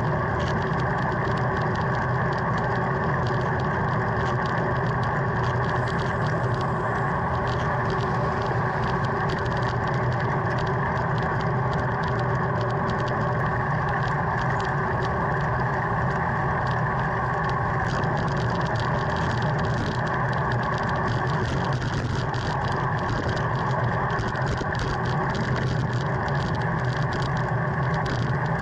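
Steady road and wind noise picked up by a camera mounted on a moving road bicycle: an even rumble and hiss of tyres on asphalt and air rushing past.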